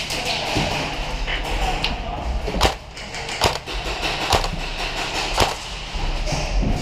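Airsoft gun firing single shots, about four sharp cracks a second or so apart, over a steady low background hum.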